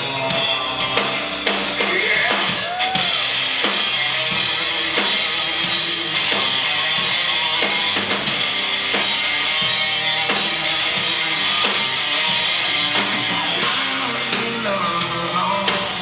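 Rock band playing live: electric guitar and bass over a steady drum-kit beat.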